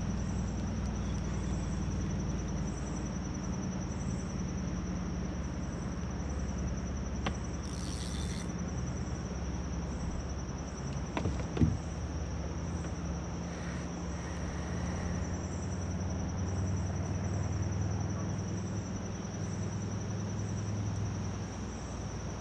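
Insects trilling steadily in a fast, even pulse, over a steady low rumble. A few sharp knocks, the loudest about halfway through, with a short hiss a little before them.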